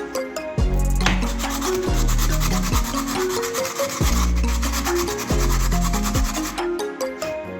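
Background music with a steady deep bass beat. From about a second in until near the end, a scratchy rubbing sound of sanding on wood runs over it.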